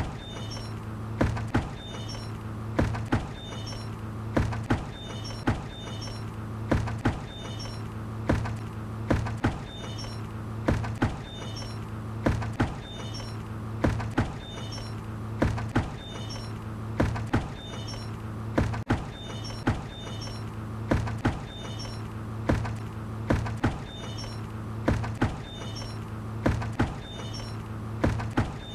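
A bucket knocking and clanking in a slow, uneven repeating rhythm, often two knocks close together about every second and a half, each with a short metallic ring. A steady low drone runs underneath.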